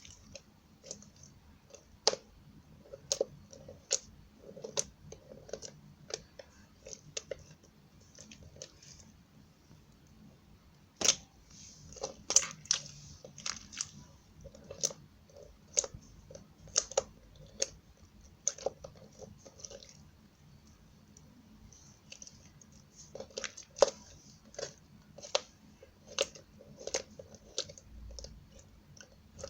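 Slime being squeezed and stretched by hand, giving irregular wet clicks and pops as air pockets burst. The pops come in busy runs with short pauses between.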